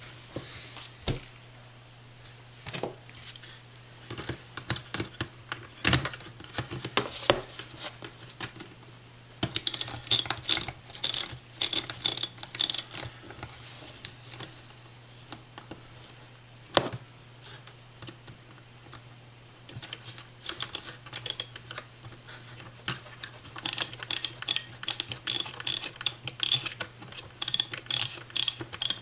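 Small clicks and taps from hands and a small tool working on an RC scale truck's front steering knuckle and wheel hub, with runs of rapid, even ticking around ten seconds in and again from about twenty-four seconds on. A steady low hum runs underneath.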